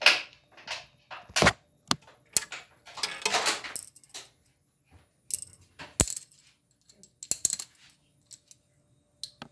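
A series of sharp clicks and knocks of small hard objects being handled, with a stretch of rustling about three seconds in and one more loud click around six seconds.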